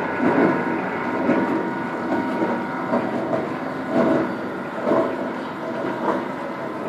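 Belt-driven heavy facing milling machine running, a steady mechanical drone with a held whine and a pulse about once a second.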